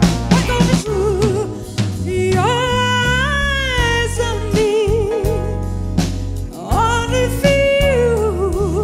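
A woman singing into a microphone over a band, with long held notes and a wide vibrato, backed by a drum kit, bass and keyboards.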